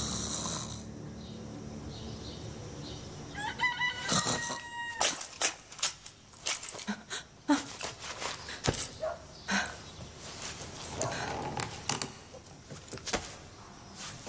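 A rooster crows once, about four seconds in, a single long call on a steady pitch: the dawn crow at waking time. Scattered short clicks and knocks follow.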